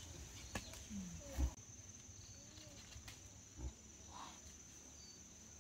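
Insects chirring in a steady, high-pitched drone, with a few soft knocks.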